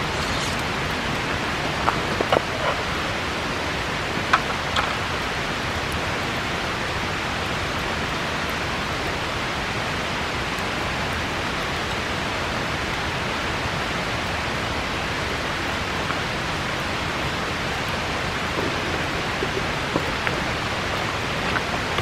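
Steady rushing of a river, with a handful of sharp crackles and pops from a wood bonfire in the first five seconds or so.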